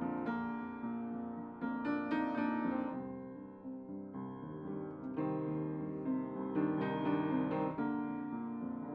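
Solo piano music: sustained chords struck every second or so, softer around the middle.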